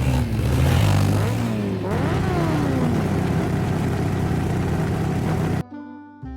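A motor vehicle's engine revving and driving off, its pitch rising and falling several times in the first three seconds, then running steadily until it cuts off suddenly a little over five seconds in.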